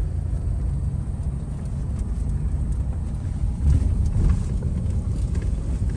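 Car driving on a dirt road, heard from inside the cabin: a steady low rumble of tyres and engine, with a brief louder patch a little past halfway.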